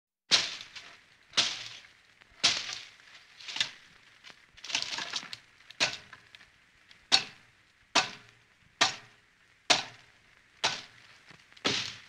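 Bolo knife chopping: about a dozen sharp, crisp strokes, roughly one a second, each with a short fading tail.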